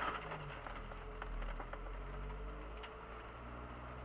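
Kia Sportage pushing through brush with its engine running steadily: a loud sudden brush-and-branch strike on the front at the start, then scattered twig clicks and scrapes against the body over the engine's hum.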